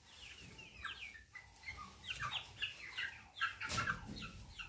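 Flock of chickens calling in a poultry house: many short, high, falling peeps overlapping throughout. A brief sharp noise cuts through near the end.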